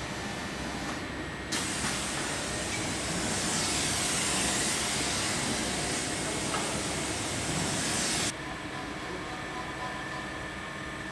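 Palletizing robot's air system giving a loud steady hiss that starts suddenly about a second and a half in and cuts off suddenly some seven seconds later, over a steady machine hum.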